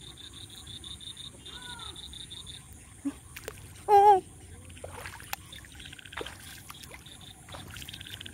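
Bare feet stepping through shallow water and mud, with a steady chorus of insects and rapidly pulsing frog calls behind. A brief pitched call stands out about four seconds in.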